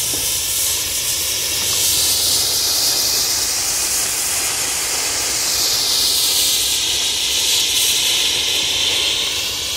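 Potassium nitrate and sugar rocket motor, packed in a cardboard tube, burning in a static ground test: a loud, steady hiss of exhaust jetting from the tube's mouth.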